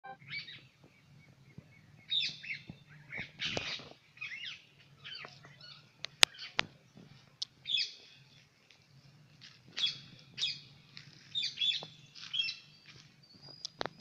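Parrots calling from a tree canopy: short, harsh screeching calls in repeated clusters. Two sharp clicks cut through, the loudest about six seconds in and another at the very end.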